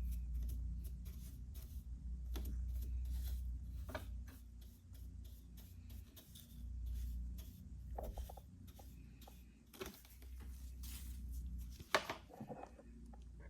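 A razor blade scraping glued-on shards of shattered back glass off an iPhone SE in quick, repeated short strokes, with a few louder scrapes near the end, over a steady low hum.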